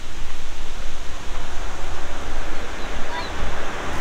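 Wind buffeting the microphone while travelling along a road: a steady low rumble under an even hiss of road noise.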